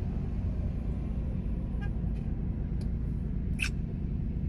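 Steady low rumble of an idling vehicle engine, with a few faint short clicks and one sharper click about three and a half seconds in.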